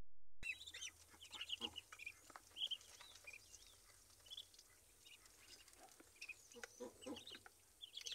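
Muscovy ducklings peeping: many short, high peeps, scattered and sometimes overlapping.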